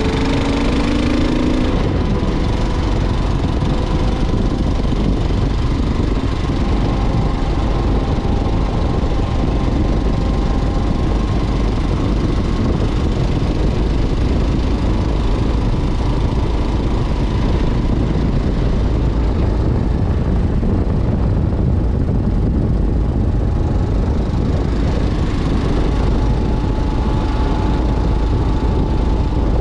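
2015 Kawasaki KLR 650's single-cylinder four-stroke engine running steadily as the bike cruises along, under a dense, steady low rumble.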